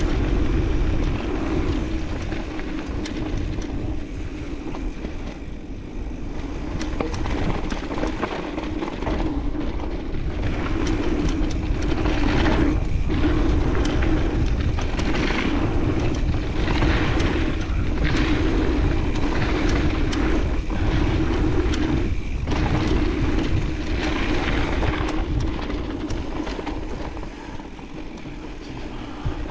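Mountain bike riding down a dirt trail: steady wind rush on the microphone and tyre noise, with frequent clicks and rattles as the bike goes over bumps.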